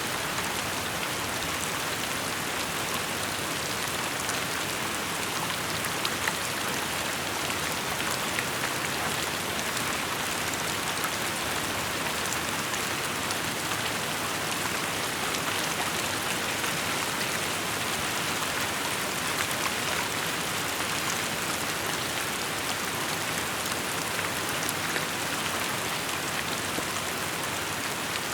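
Steady rainfall, a constant hiss with many small drop ticks scattered through it.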